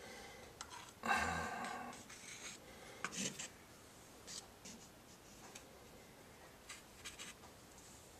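A fine ink brush scratching and stroking on paper, with scattered light clicks and taps. One louder ringing knock comes about a second in.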